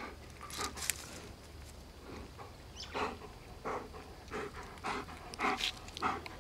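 Two dogs play-fighting, one mouthing the other's neck, with quick breathy panting and huffing in short bursts about every half second, growing busier after about three seconds.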